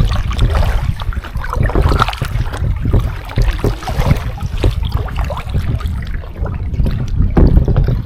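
Kayak paddle strokes dipping and splashing in lake water, with drips off the blade. Wind rumbles on the microphone throughout.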